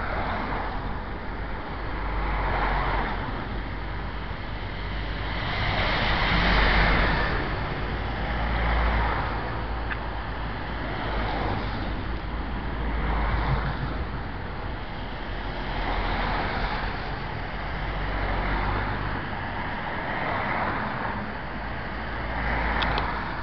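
Fast-flowing floodwater of the River Dee rushing, mixed with wind buffeting the microphone. The noise swells and eases every two seconds or so.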